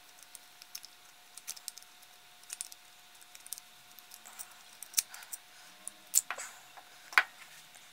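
Light, scattered clicks and taps of small electric motor parts being handled and fitted together, as the field-coil housing is slid back over the armature; a few sharper clicks come near the end.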